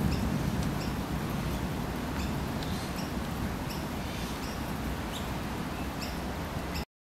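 Thunder rumbling low and dying away over a steady hiss, with a small bird's short high chirps repeating about twice a second. The sound cuts off abruptly near the end.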